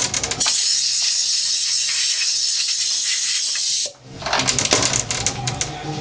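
A steady high hiss, like air blowing, that runs for about three and a half seconds and cuts off suddenly, with light clicking and rattling just before it starts and again just after it stops.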